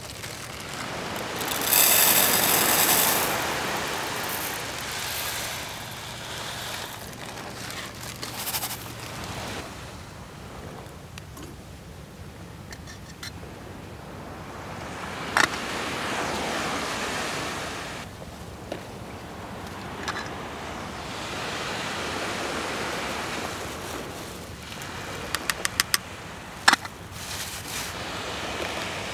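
Surf washing on a beach, rising and falling in slow swells, with a louder rush about two seconds in. A single sharp click comes midway, and a quick run of clicks near the end.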